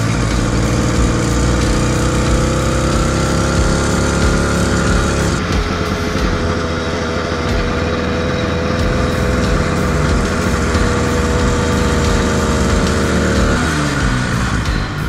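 Small engine of a motorized bicycle running under way. Its note rises over the first five seconds, holds steady, then drops off sharply near the end.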